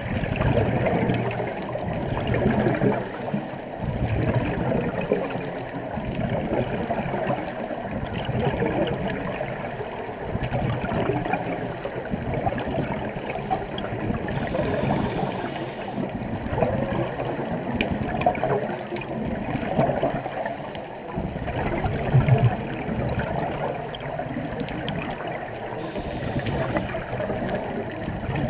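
Underwater ambience heard through a diving camera's housing: scuba divers' exhaled bubbles gurgling and rushing continuously, muffled and fluctuating.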